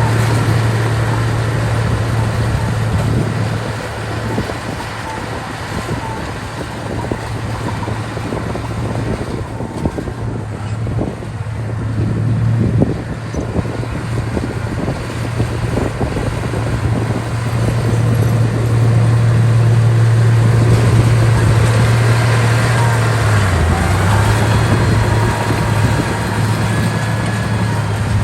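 Heavy diesel engine of a construction machine running with a steady low drone, with irregular knocking and rattling over it. The engine note drops briefly near the end, and the machine grows louder in the second half.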